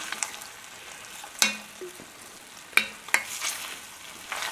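Low sizzling of chicken thighs and their juices in a hot cast iron enamel roaster fresh from the oven, with a few sharp clicks and taps over it.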